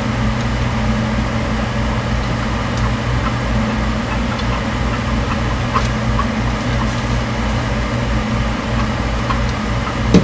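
Steady low mechanical hum of a fan or motor running, with a few faint clicks and one sharp knock just before the end.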